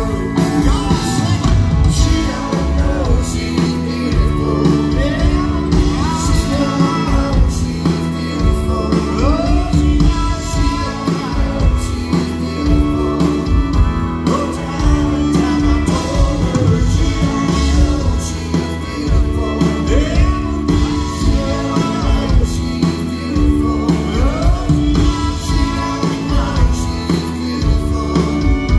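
Live country band playing with lead vocals over drums, bass and guitars, with a steady beat.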